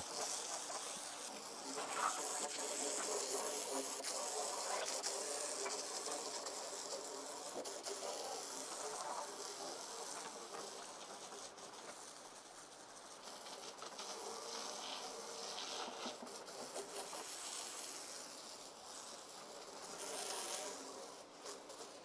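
Pressure washer spraying water onto freshly sawn poplar slabs: a steady hissing spray that rises and falls as the wand sweeps across the wood.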